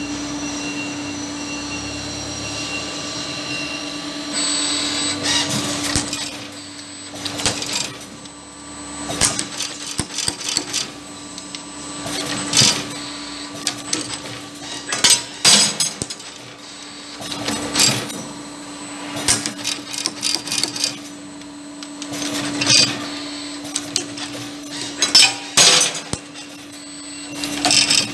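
WAFIOS BM6 CNC wire bending machine running automatic bending cycles. A steady hum runs throughout, and from about four seconds in there are repeated short bursts of clatter every one to three seconds as the bending head feeds and bends the wire.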